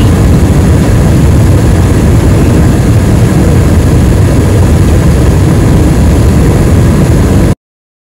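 Bryant gas furnace firing with all six burners lit and the inducer fan running: a loud, steady roar of burner flames and fan, cutting off suddenly near the end.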